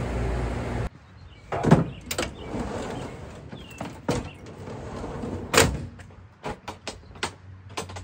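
A steady machine hum stops abruptly about a second in. It is followed by scattered knocks and clatters, two of them loud, and a quick run of clicks near the end.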